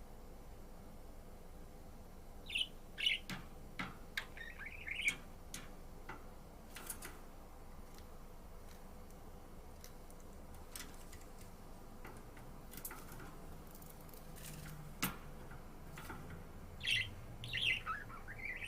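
Budgerigar chirping in short, high, quick calls, one cluster a few seconds in and another near the end. Scattered sharp clicks sound in between.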